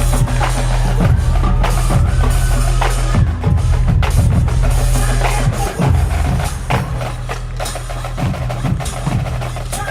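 Marching band playing: many sharp drum and percussion strikes over a few held wind notes and a steady low bass, eased slightly in loudness in the second half.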